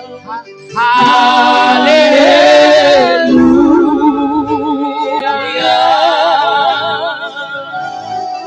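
Worship singing: a voice holding long notes with vibrato over backing music, swelling louder about a second in.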